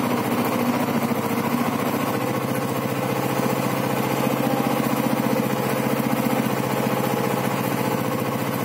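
Royal Enfield Bullet's single-cylinder four-stroke engine running steadily, its rear wheel spinning an alternator that is powering a floodlight.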